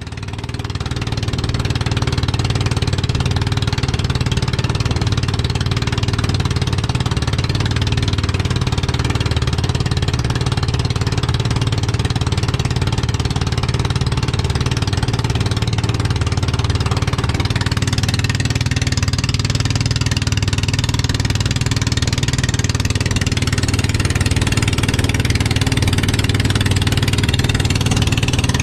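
Outrigger boat's engine running steadily under way, a constant low drone with the rush of water and wind over it. It fades in over the first second or so.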